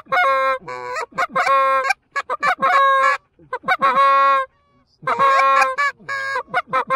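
Goose calls blown by hunters to draw in Canada geese: loud, close honks and clucks in quick bursts, each honk breaking upward in pitch, with a short pause about four and a half seconds in.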